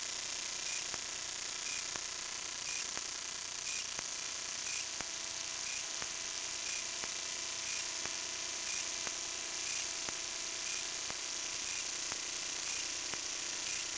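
Steady hiss and faint electronic whine from a small kite-borne camera's own electronics, with a faint tick about once a second.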